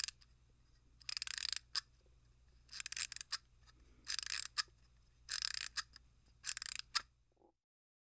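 Clockwork mechanism sound effect: six short rasping mechanical bursts about a second apart, several followed by a single sharp click, like a wind-up mechanism being wound.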